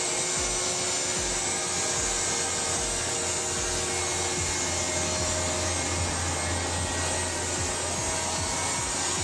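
Automatic four-edge trimming saw running, its motors giving a steady whine and hum, with background music with a steady beat laid over it.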